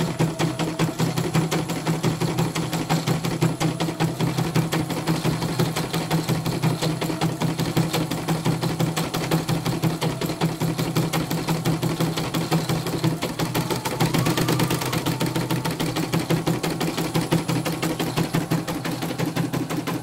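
CNY portable computerized embroidery machine stitching at speed: a rapid, even chatter of needle strokes over the steady hum of its motor, as the hoop carriage moves the cloth under the needle to fill small blocks.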